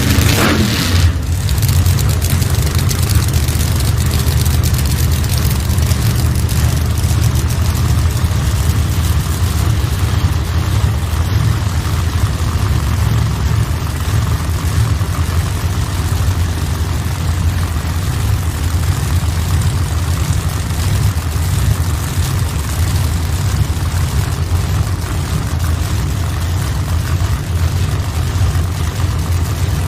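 Pro Modified drag cars' V8 engines idling with a steady, loud, low rumble that holds at an even level without any revving.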